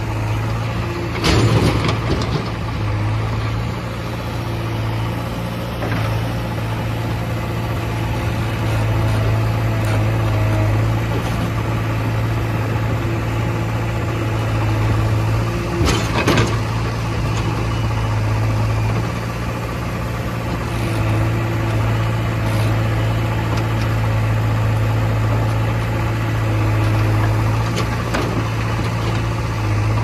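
JCB backhoe loader's diesel engine running steadily, its note growing and easing in level as the boom and bucket work. Two heavy thuds of soil and clods dropping into the steel tractor trolley, one about a second and a half in and one about sixteen seconds in.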